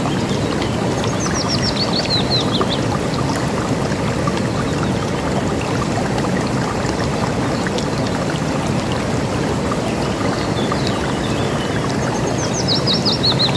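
River water rushing steadily, with a songbird singing a quick run of high notes that falls in pitch, twice: about a second in and again near the end.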